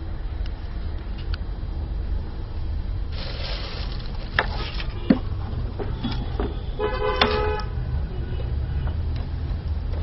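Steady low hum of workshop machinery, with a burst of hiss about three seconds in, a couple of sharp clicks, and a short horn-like tone about seven seconds in.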